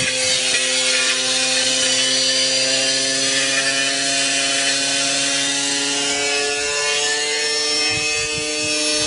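Washing machine spinning its drum at high speed with a heavy iron piece inside. It makes a steady mechanical whine over a harsh grinding rattle, and the whine creeps slowly higher in pitch in the second half.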